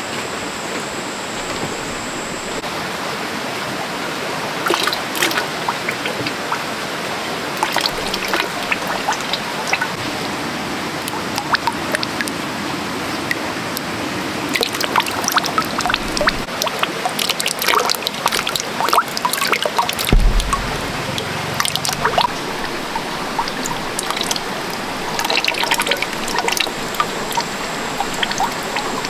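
Water trickling and pouring, with many small clicks and knocks throughout and a low thump about twenty seconds in.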